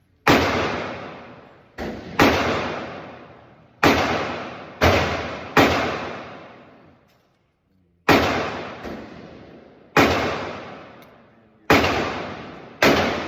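About ten gunshots at an uneven pace, mostly one to two seconds apart with a longer pause near the middle, each trailing off in a long echo.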